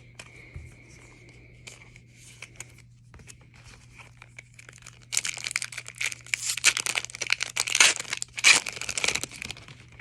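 Plastic hockey card pack wrapper being torn open and crinkled, a dense crackling rustle in the second half after a few light handling clicks.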